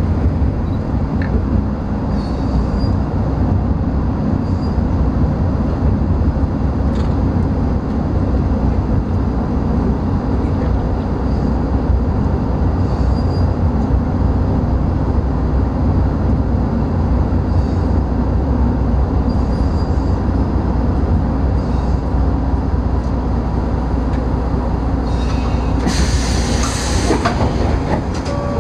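Diesel railcar running along the line, heard from the cab: a steady low engine drone with wheel rumble and the odd faint click from the track. A brief hiss near the end.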